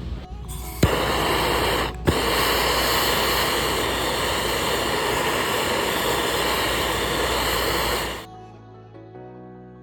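A loud, steady spray hiss from a pressurised jet starts suddenly about a second in, breaks off briefly, resumes and cuts off after about seven seconds. A hip-hop beat plays underneath and carries on alone near the end.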